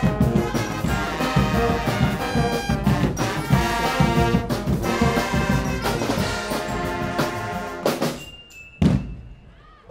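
A Guggenmusik carnival band of brass and drums playing a loud brassy piece over a pounding drum beat. The music ends about eight seconds in with two final drum hits and dies away.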